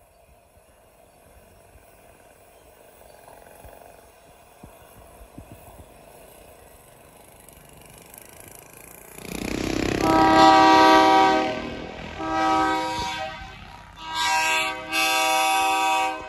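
Diesel locomotive air horn sounding a steady multi-note chord in four blasts, starting about nine seconds in; the first blast is the longest. Before the horn there is only a faint low rumble.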